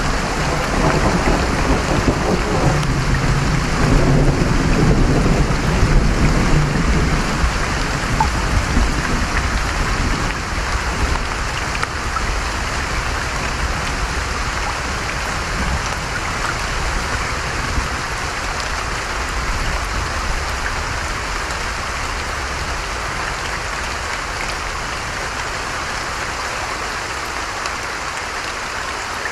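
Rain and stream water hissing steadily, with a low thunder rumble rolling through the first several seconds and fading away.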